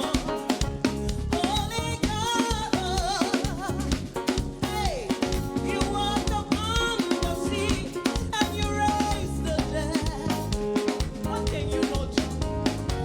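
Live gospel praise and worship music: singing over a band with a drum kit keeping a steady beat.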